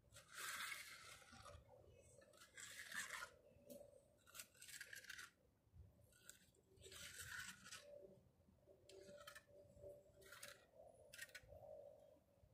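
Hand float scraping across wet concrete in a series of faint, short smoothing strokes at uneven intervals, each lasting up to about a second.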